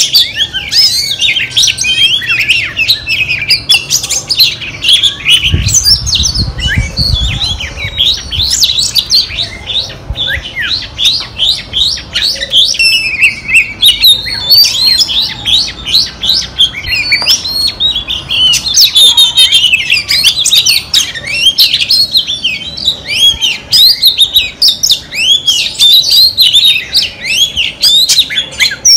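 Female oriental magpie-robin singing a long, fast, unbroken run of varied whistles and chirps.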